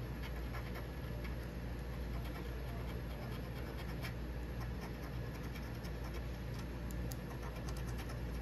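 A coin scraping the scratch-off coating from a paper lottery ticket: a steady scratching, full of quick little ticks as the coin edge drags across the card.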